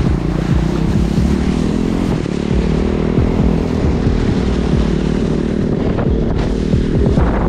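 Quad bike engine running steadily as it tows a wakeboarder through shallow water, with the hiss of water spraying off the board and wind on the microphone.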